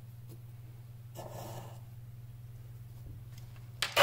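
Faint steady low hum, with a short soft rustle of salt being sprinkled over the raw eggs in the pot about a second in. A click just before the end as the hand blender is switched on.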